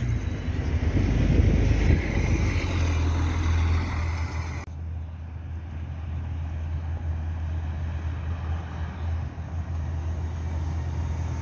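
A city bus passing close by, its engine and tyre noise rising and falling over the first few seconds; then, after an abrupt cut, a quieter steady low rumble as an Ebusco battery-electric bus approaches slowly.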